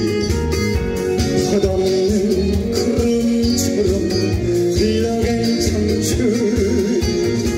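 A man singing with a wavering vibrato into a microphone over amplified instrumental accompaniment.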